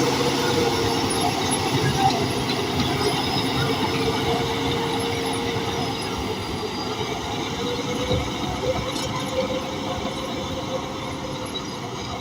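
Bulldozer at work: its diesel engine runs steadily under the clatter of its steel tracks, slowly getting quieter.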